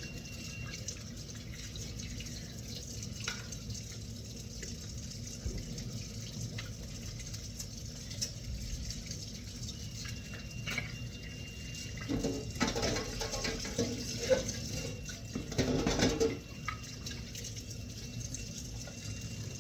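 Kitchen tap running into a sink as hands are washed under it, with louder bursts of splashing and handling about twelve to sixteen seconds in.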